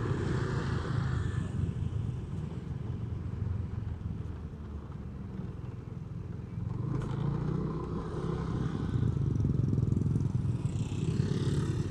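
Honda Vario 125 scooter riding slowly in traffic: its single-cylinder engine running steadily under road noise, swelling a little in the second half.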